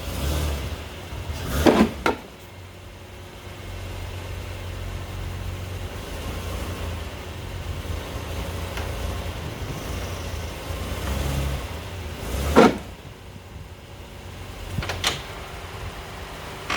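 A vehicle's engine running with a low, steady rumble, with three sharp knocks, the loudest about twelve and a half seconds in.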